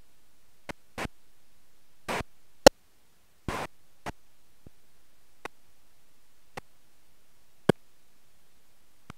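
Scattered sharp clicks and knocks over a steady low hiss, with two brief rustling bursts about two and three and a half seconds in; the loudest is a single sharp click just before the three-second mark.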